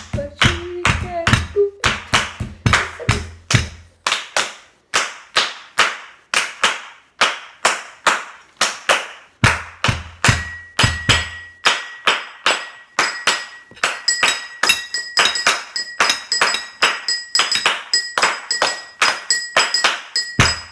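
A homemade beat of hand claps and knocks on a table at a steady rhythm of about three hits a second. A steady high tone joins in about ten seconds in.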